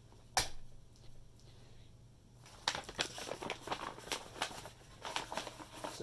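A single sharp click, then from about two and a half seconds in, a run of paper rustling and crinkling as a Type A paper vacuum filter bag is handled and fitted into the cloth outer bag.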